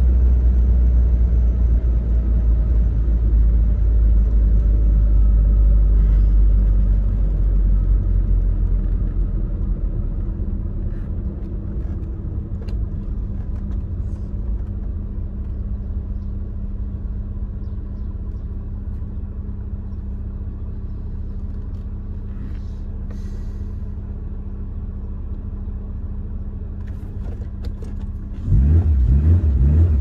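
Tofaş Doğan SLX's four-cylinder engine heard from inside the car while driving: a loud low rumble at first that eases into a quieter steady drone. Near the end it suddenly gets louder and rises in pitch as the engine revs up.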